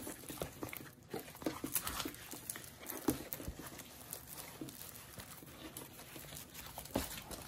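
Faint crinkling and scattered light taps of a rolled diamond-painting canvas in its plastic cover being handled and unrolled on a tabletop, with a louder tap about seven seconds in.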